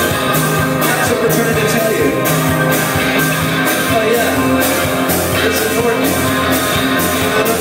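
Live band music: upright bass, banjo, electric guitar and drums playing over a steady drumbeat.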